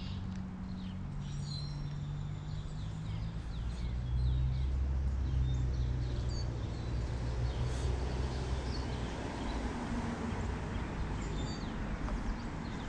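A low engine drone that swells about four seconds in and fades out around nine seconds, with birds chirping now and then over it.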